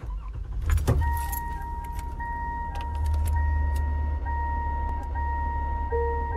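Car sounds: keys jangling with clicks about a second in, a car engine running low, and a car's high warning chime sounding steadily with short breaks. A lower beeping tone joins near the end.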